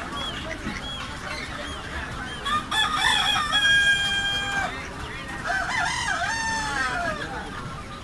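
A rooster crowing twice in quick succession a few seconds in: the first crow ends on a long held note, the second falls away at its end.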